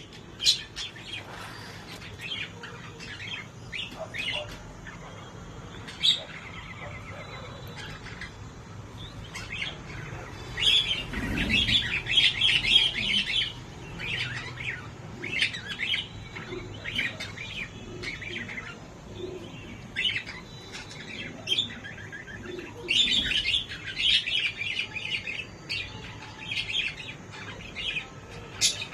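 Small birds chirping and twittering in short calls, with busier spells of overlapping chatter about eleven and twenty-three seconds in. A brief low rumble sounds near eleven seconds.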